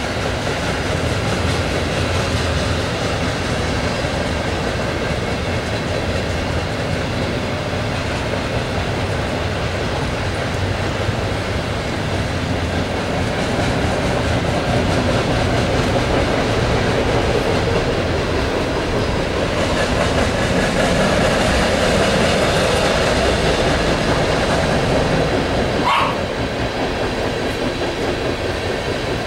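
Long freight train rolling past: a steady rumble and rattle of freight cars on the rails, swelling somewhat louder for several seconds before easing off. A dog barks once near the end.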